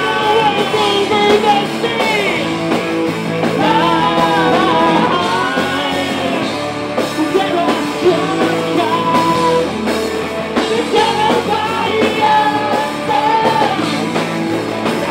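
Rock band playing, a man singing loudly into a microphone over electric guitar.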